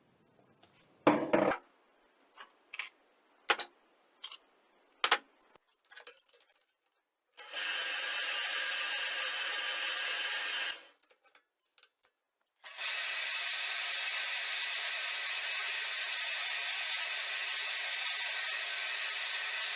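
A few scattered knocks and taps, then a small motor running steadily in two spells: one of about three seconds, then again from about thirteen seconds in without stopping.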